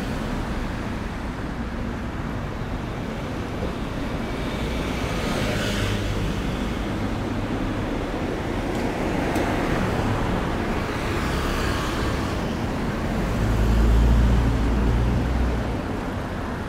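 City street traffic: cars driving past one after another with a steady tyre and engine hiss. Near the end a vehicle passes with a louder, deeper rumble.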